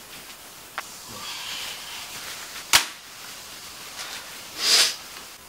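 Clothes being handled: light rustling, a sharp click near the middle, and a loud swish of fabric near the end.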